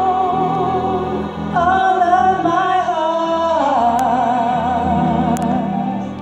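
Two women singing a gospel song together, holding long notes with wide vibrato over a steady accompaniment; the melody moves to new notes about a second and a half in and again just before four seconds.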